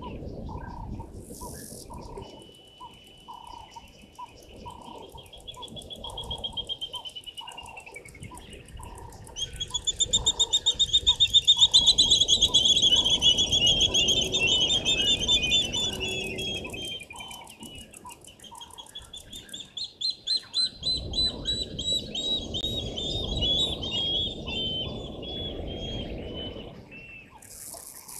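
Wild birds singing: long, rapid trilling phrases that rise and fall in pitch, loudest around the middle, over a steady run of quick lower chirps. A low rushing noise comes and goes beneath them.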